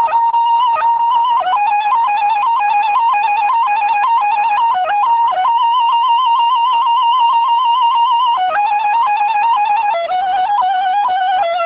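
Instrumental background music: a single high melody line with quick trilling ornaments, holding long notes, with a change of note a little after halfway and again near the end.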